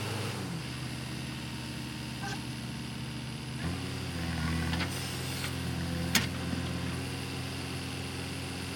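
Diesel engine of a heavy machine running steadily, its note changing and growing fuller about four seconds in. A single sharp click about two-thirds of the way through.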